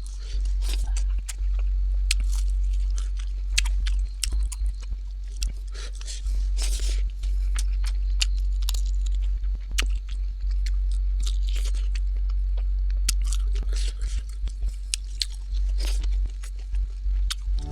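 Someone eating close to the microphone: chewing, crunching and wet mouth clicks, one after another, over a steady low electrical hum.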